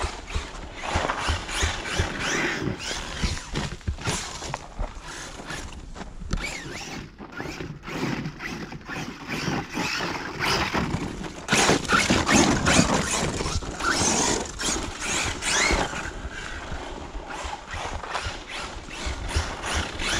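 Electric RC car driving and jumping over rough ground, its motor whining up and down as it revs, with knocks and rattles from bumps and landings. It gets louder about halfway through.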